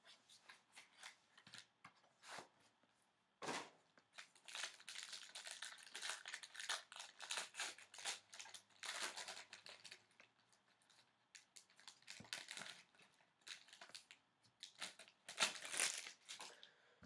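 A Panini Gold Standard football card pack being opened by hand: short tearing and crinkling of the pack wrapper and clicks of cards being handled and set down. The handling is busiest from about four to ten seconds in and again near the end.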